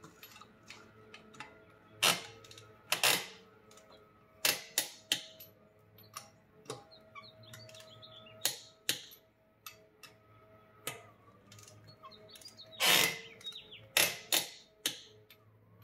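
Torque wrench ratcheting and clicking on wheel lug nuts as they are tightened to spec, around 80 foot-pounds: irregular runs of sharp clicks, the loudest about two and thirteen seconds in.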